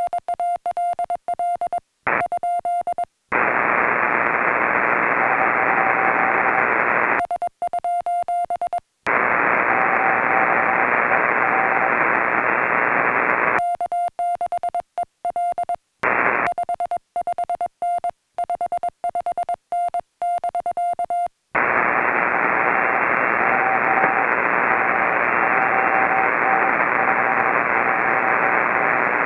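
A Morse code (CW) contact on a portable radio. A clean, steady-pitched keyed beeping, the operator's own sending, alternates with spells of receiver hiss in which the other station's weak Morse signal beeps faintly as the two stations exchange call signs and signal reports.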